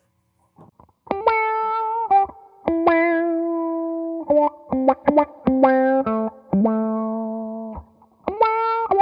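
Electric guitar played through a SolidGoldFX Supa Funk envelope filter set to its reverse-quack sweep. After about a second of silence come a string of picked notes, some held and some short stabs.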